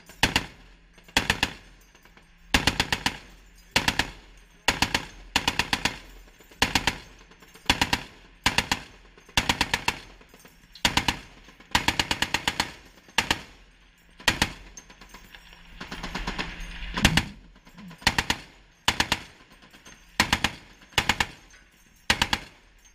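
M2 .50-calibre heavy machine gun firing many short bursts of several rounds each, about one burst a second.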